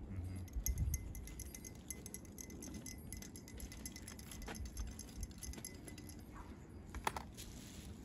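Faint, irregular metallic jingling and light ticks over a low rumble, with one sharper click about seven seconds in.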